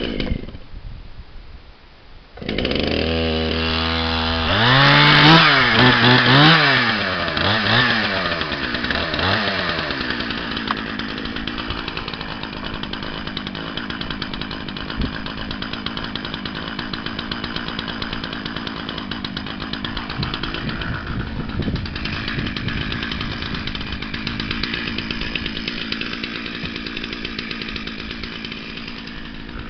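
A cold Stihl two-stroke chainsaw, pull-started, catches about two seconds in and idles. It is revved up and down several times over the next few seconds, then held at high revs.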